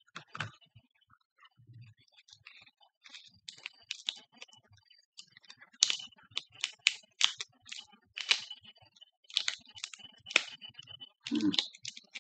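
Hands handling candy packaging and items on a desk: a run of irregular light clicks and taps.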